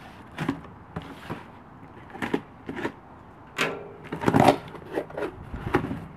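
A blade slitting the packing tape along the seam of a cardboard shipping box, heard as a run of short scrapes and clicks. The cardboard flaps are then pulled apart, with the loudest rustling scrape a little past the middle.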